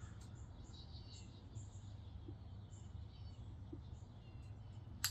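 Quiet outdoor background: a low steady hum with faint, scattered high bird chirps, and one sharp click about five seconds in.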